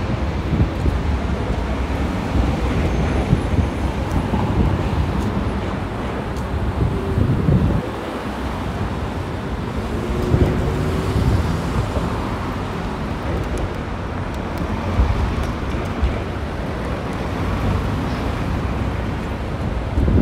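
City street traffic: cars and other motor vehicles passing close by, a steady noise of engines and tyres that swells and fades as each goes by.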